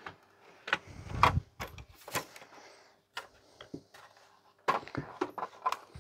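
Irregular clicks and knocks of hard plastic parts being handled: the detached front panel and chassis of a vintage Philips CD480 CD player being moved and set down. A denser run of knocks comes near the end.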